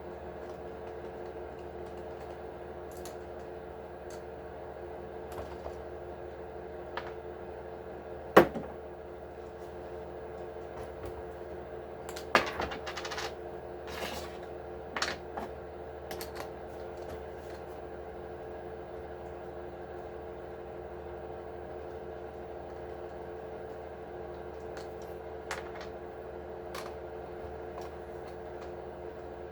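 Scattered clicks and knocks of small parts and tools being handled while an RC truck is taken apart, the loudest a single sharp knock about eight seconds in and a cluster a few seconds later, over a steady background hum.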